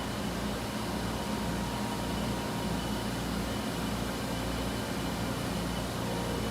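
Froriep CNC vertical boring mill running, a steady low hum with a few faint steady tones over an even hiss.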